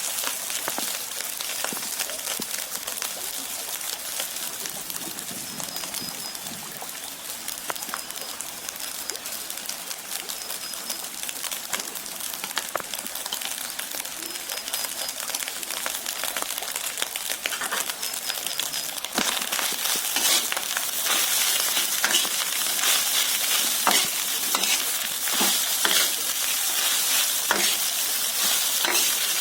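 Food sizzling in hot oil in a frying pan while being stirred, with scattered scrapes and clicks of a spatula against the pan. The sizzle gets louder about two-thirds of the way through.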